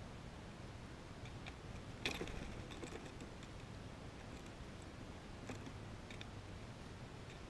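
Faint, irregular sharp clicks of a red squirrel gnawing at food held in its paws, the sharpest about two seconds in, over a steady low hiss.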